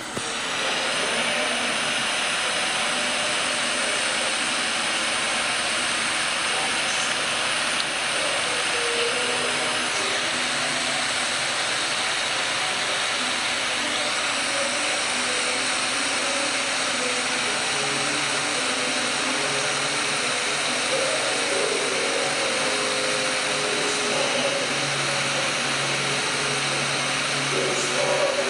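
Loud, steady rushing hiss from the playing video's sound track through a screen's speaker, starting abruptly as playback begins. Faint low tones show through under the hiss.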